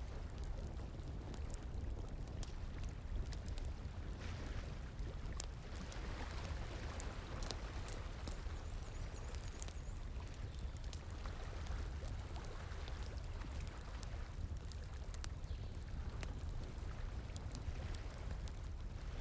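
Wood fire crackling with scattered, irregular sharp pops over the steady rush of flowing stream water.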